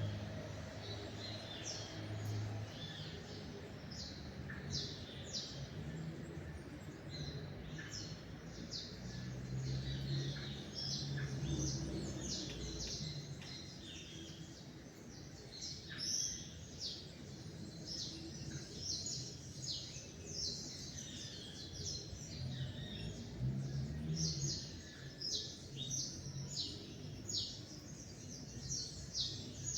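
Several small songbirds chirping and singing in a dawn chorus, with many short, high calls overlapping, over a low steady background rumble.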